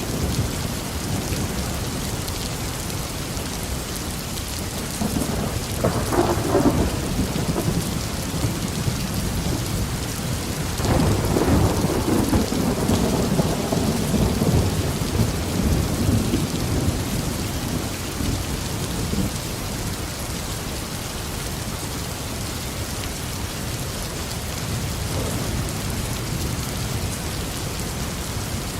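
Steady heavy tropical rain falling on a garden, with rolls of thunder rumbling over it: a shorter roll about five seconds in and a longer, louder one from about eleven seconds that fades out over several seconds.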